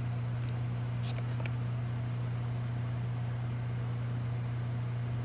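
A steady low hum with a few faint light ticks in the first second or so.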